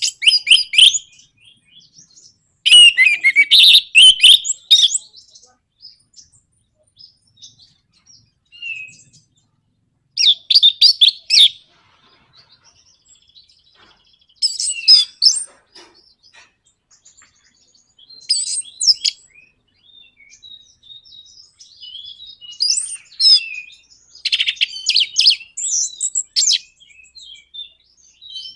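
Orange-headed thrush (anis merah) singing its rapid, chattering 'nraktak' song in about six loud bursts, each a second or two long, with short pauses between them.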